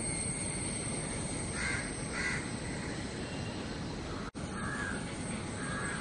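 A crow cawing four times, in two pairs of calls, over a steady background hiss. The sound cuts out for an instant a little past the middle.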